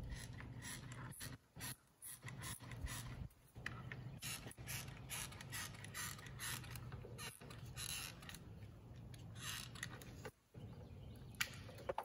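Hot glue gun's trigger ratcheting in a run of irregular clicks as glue is pressed out, mixed with scraping against foam.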